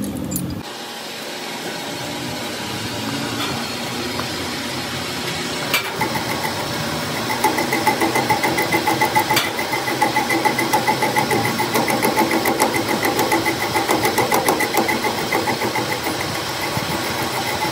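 Metal lathe running with a boring tool cutting inside the welded bore of a drive-shaft yoke. About seven seconds in, the cut turns into a rhythmic, pulsing ring, about three pulses a second.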